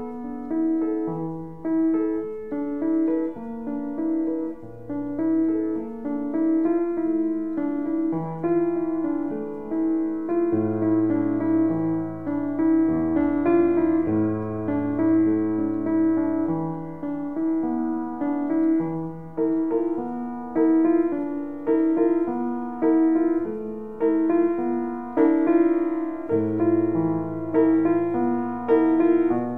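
Piano improvisation: chords repeated in a steady pulse about once a second, with low bass notes held beneath them at times.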